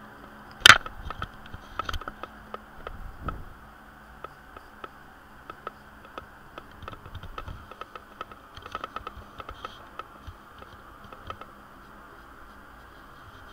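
Handling noise from drawing paper and a pencil: a sharp knock about a second in, then scattered clicks and light taps as the sheet is shifted and the pencil is set back on it. A steady low hum and hiss run underneath.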